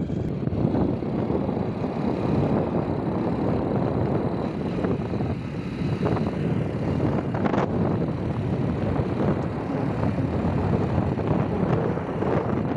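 Steady wind rushing over the microphone of a moving motorbike, with the bike's engine and road noise underneath.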